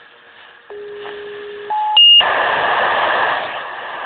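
Fire department pager sounding a dispatch tone-out: a steady low tone for about a second, a short higher tone, then a brief high-pitched beep. Steady radio static hiss follows, as the channel stays open before the dispatcher speaks.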